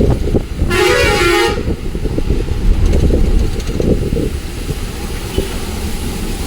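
A vehicle horn honks once, for just under a second, about a second in, over the steady low rumble of a bus on the move in heavy rain.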